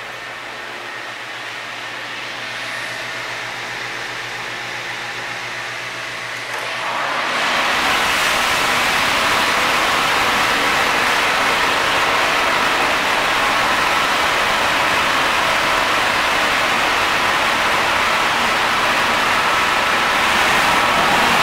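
Container ship's engine-room machinery running: a muffled steady hum with faint steady tones, which about seven seconds in gives way to a much louder, dense, even machinery noise once inside the engine room.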